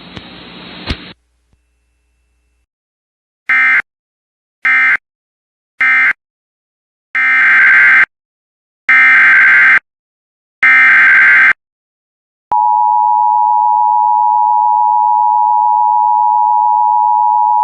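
Emergency Alert System data bursts: three short bursts of warbling digital data (the end-of-message code), then three longer bursts of about a second each (the SAME header of the next alert). About two-thirds of the way through, the EAS attention signal starts: a loud, steady two-tone pitch that holds.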